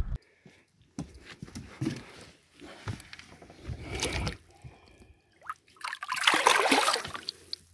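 A channel catfish being released by hand from a boat: water dripping and a few small knocks, then, about six seconds in, a loud splash lasting a second or so as the fish is let go and kicks back into the lake.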